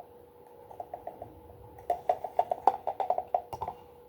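A quick run of light hollow plastic knocks and clicks starting about two seconds in, from handling a boxed bobblehead figure and its packaging, over a faint steady hum.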